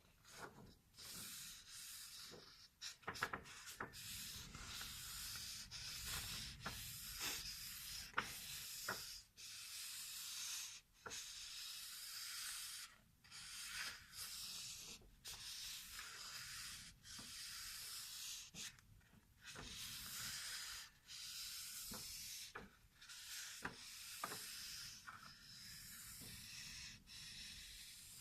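Paper being rubbed by hand close to the microphone: a long series of soft, hissy strokes, each about a second long, separated by brief pauses, with a few small crinkles and clicks.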